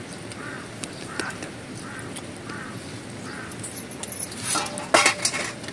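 A faint animal call repeats about twice a second, then dies away. Near the end come a few sharp clinks of metal bowls and utensils.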